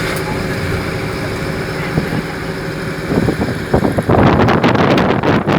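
Steady low rumble of a moving vehicle. From about three seconds in it turns rough and gusty, with wind buffeting the microphone.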